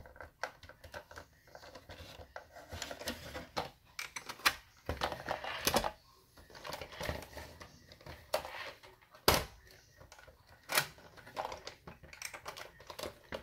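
Irregular clicks, taps and knocks of a large plastic Lightning McQueen toy car being handled and turned over on a wooden tabletop, with a few louder knocks scattered through.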